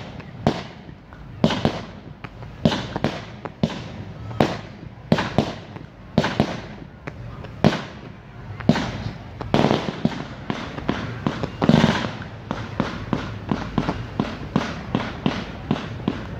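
Low-noise display fireworks firing in quick succession: irregular sharp pops and cracks, the loudest about twelve seconds in, settling in the last few seconds into a steady run of about two or three shots a second.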